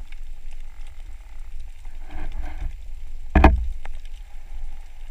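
Muffled underwater rumble of water moving around a handheld underwater camera, with a brief gurgling patch and one sharp knock about three and a half seconds in.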